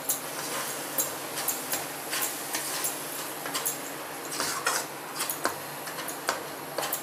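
Steel spatula scraping and clacking against a stainless steel kadai as a thick masala paste is stirred, with irregular sharp clicks a few times a second.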